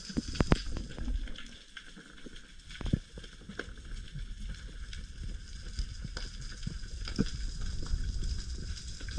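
Underwater ambience: scattered sharp clicks and a sizzling crackle over a low rumble, the crackle typical of snapping shrimp on a rocky reef. A few louder clicks stand out about half a second and three seconds in.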